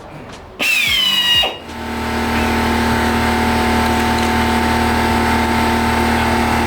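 Power drill running, with a brief burst whose whine falls away about half a second in, then a steady whine held for several seconds, as when driving self-tapping screws into the car's body.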